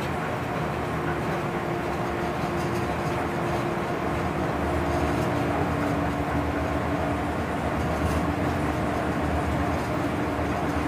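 DB class 139 electric locomotive on the move, heard from the driver's cab: steady running noise with a humming tone that steps slightly lower in pitch about four seconds in.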